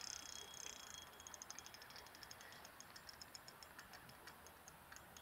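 Faint, fast, even ticking of a spinning reel under load from a hooked catfish, starting about a second in; otherwise near silence.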